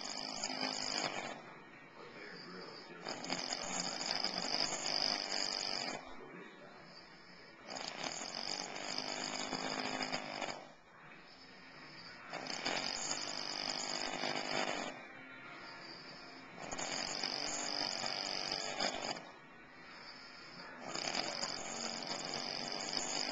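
A man snoring loudly in a steady rhythm, one long snore of two to three seconds about every four and a half seconds, with quieter breaths in between.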